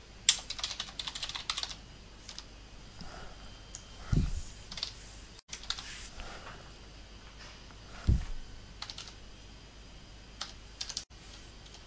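Computer keyboard typing: a quick run of keystrokes at the start, then scattered key presses. Two dull low thumps come about four and eight seconds in.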